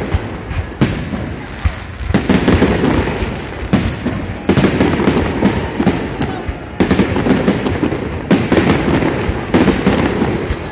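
Fireworks display: a dense run of bangs and crackles, with clusters of louder bursts every second or two.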